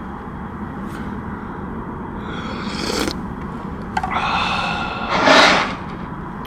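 Someone slurping hot broth from a spoon: a short slurp about two and a half seconds in, then a longer one from about four seconds in that ends in the loudest slurp, over a steady low hiss.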